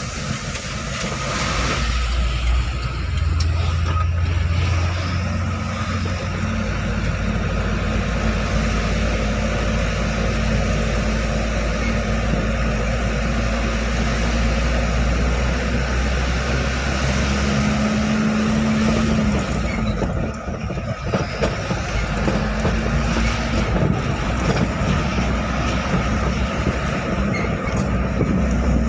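Truck's diesel engine heard from inside its own cab, running under load with road noise, its note rising and falling with the revs. The engine sound drops off briefly about twenty seconds in, then picks up again.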